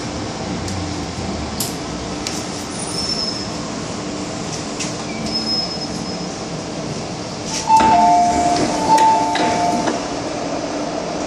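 Hong Kong MTR Island Line M-Train pulling into a station, with brief high brake squeals. About eight seconds in, a loud two-tone door chime sounds twice, high then low, with a door thud.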